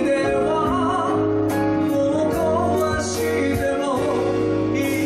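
Man singing a ballad live into a microphone, backed by a band of keyboard, guitar, bass and percussion.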